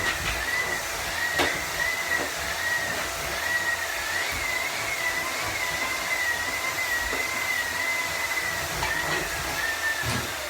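Hoover vacuum cleaner running: a steady rushing hiss with a high motor whine that wavers up and down in pitch, dying away near the end.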